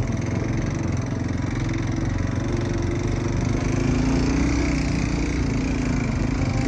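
Four-wheeler (ATV) engine running steadily while riding along a dirt trail, rising a little in pitch about halfway through and easing back near the end.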